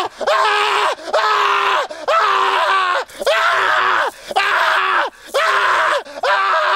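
A man screaming in pain again and again, about seven long cries in a row, each around a second long, with brief breaks for breath between them.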